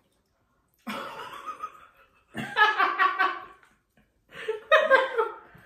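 Two women laughing in three bouts, starting about a second in.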